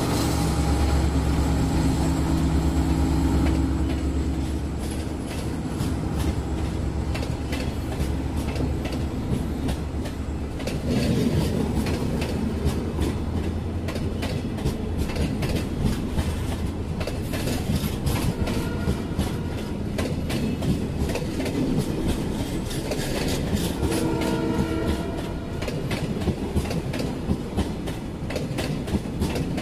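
Passenger coaches of a departing Indian Railways Humsafar Express rolling past, wheels clicking rhythmically over rail joints. At the start, the steady hum of the generator car's diesel generator sets passes by and fades.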